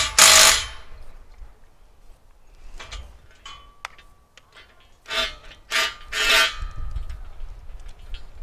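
Metal tools and steel parts clanking on the sawmill's steel track: a loud burst at the start, a few light clicks, then three sharp clanks with a ringing tail a little past the middle.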